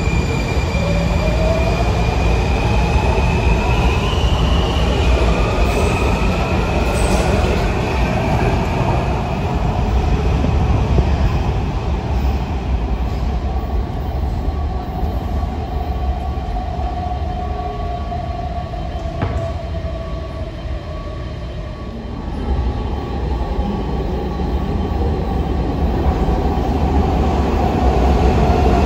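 Washington Metro subway train in an underground station, its motor whine rising steadily in pitch over the first several seconds as it accelerates, over wheel and rail noise. The sound eases about three-quarters through, then builds again near the end.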